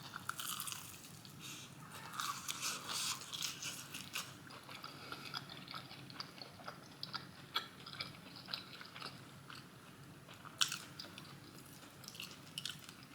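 Bites and chewing of crispy fried chicken tenders close to the microphone: crunching through the breading, densest in the first few seconds, then lighter moist chewing with one sharp crunch about ten seconds in.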